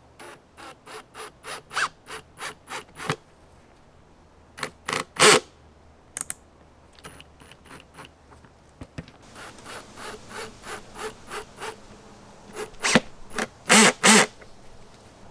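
Cordless drill-driver driving foot-strap screws into a wing foil board, run in short trigger bursts about three a second, with a few longer, louder runs about five seconds in and again near the end.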